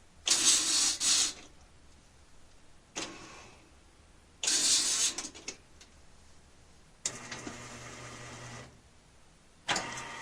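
A small electric motor whirring in five short runs of about one to one and a half seconds each, with pauses between.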